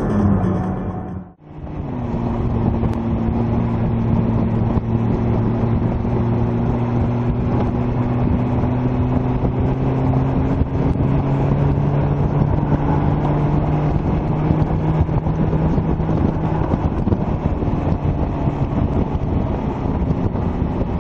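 Sports car engine running at a steady cruise, heard close up from outside the car with road and wind noise; its pitch rises slightly and settles back. A little over a second in the sound drops out briefly and switches from one car's engine to another's.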